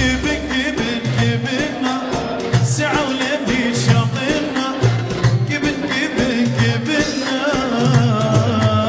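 Live Iraqi choubi dance music: a hand drum keeps a steady dance beat under a wavering, ornamented melody.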